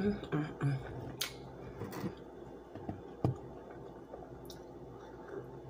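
Close-up eating and drinking sounds: wet mouth sounds of chewing, with a few sharp clicks spread through, and sips of orange juice near the end. A brief murmur of voice at the very start.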